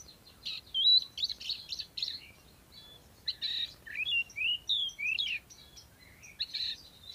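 Oriental magpie-robin singing a varied song of quick whistled notes that slide up and down, mixed with harsh scratchy chattering notes, in phrases with short pauses between them.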